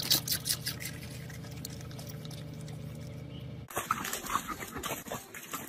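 A dog making wet mouth noises in a car cabin over a steady low hum from the vehicle. About four seconds in, the sound cuts to outdoors, with splashing as a small dog runs through a muddy puddle.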